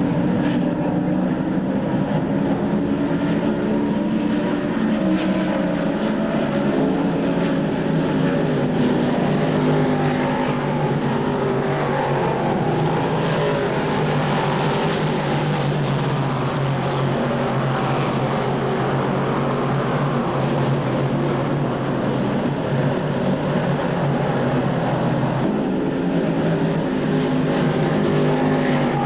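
Dirt modified race cars running at speed on the track, a loud, steady engine drone that holds without a break.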